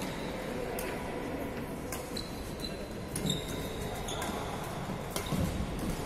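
Badminton rackets striking a shuttlecock in a rally, a sharp crack every second or so, with shoes squeaking briefly on the wooden court floor midway and a few footfalls near the end.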